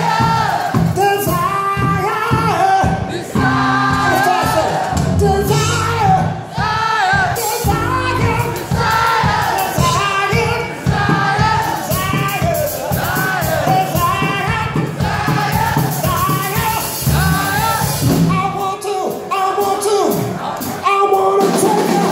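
Live rock band playing: sung lead vocal over distorted electric guitar, bass guitar and drum kit. Near the end the bass and drums drop out for about two seconds, then the full band crashes back in.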